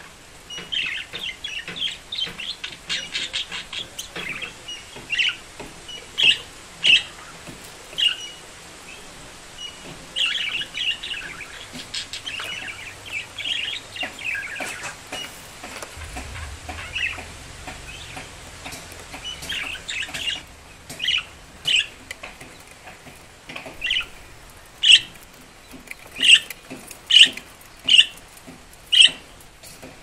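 Caged budgerigars chirping and warbling. There is rapid chatter in the first half, and loud, sharp single chirps come about once a second near the end.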